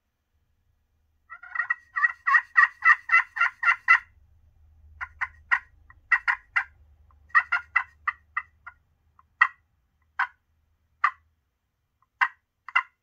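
Quaker Boy Magic Touch slate turkey call worked with its acrylic striker on slate not yet roughed up with Scotch-Brite. It plays a quick run of about a dozen yelps, about four a second, then slower single notes and short groups.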